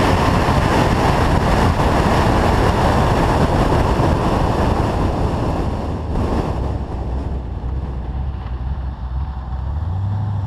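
Wind buffeting a hood-mounted camera, with tyre and engine noise, as a drag car coasts down after a quarter-mile pass. The rush fades from about six seconds in as the car slows, leaving a low engine drone that rises slightly near the end.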